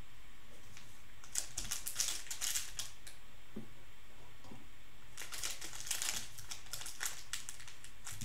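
Plastic wrapper of a Panini Prizm basketball card pack crinkling in the hands as it is worked open, in two spells of crisp crackling, about a second in and again about five seconds in.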